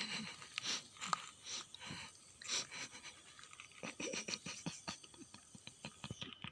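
Faint, irregular small clicks and soft rustling noises in a small room, with no singing or music.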